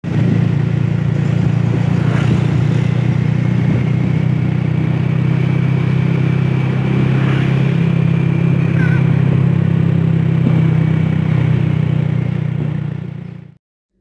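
Motorcycle riding along a road, recorded on board: a loud, steady engine drone with road and wind noise. It cuts off abruptly near the end.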